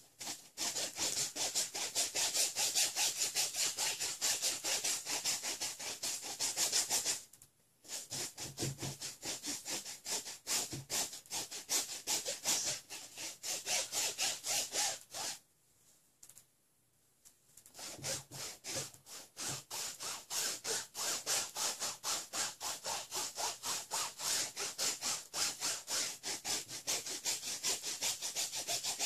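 Flat paintbrush scrubbing oil paint onto a stretched canvas in quick back-and-forth strokes, about four to five strokes a second. The scrubbing stops briefly twice, once for under a second and once for about two seconds near the middle.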